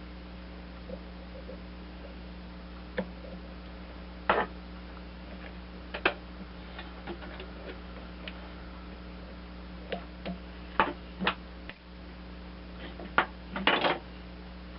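Irregular sharp clicks and clinks of hand tools and metal parts being handled, a dozen or so scattered through, with a quick cluster near the end, over a steady low hum.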